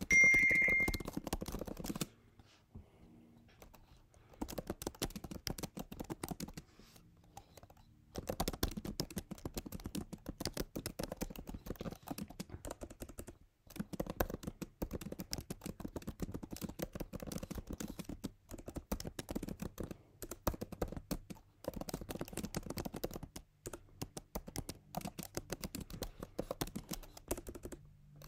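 Typing on a computer keyboard: runs of rapid key clicks broken by short pauses. A brief high beep sounds about half a second in.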